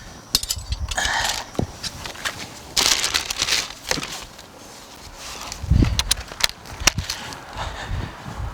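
Plastic interior car trim and clips being handled and pried: scattered sharp clicks and knocks with bursts of rustling, in no regular rhythm.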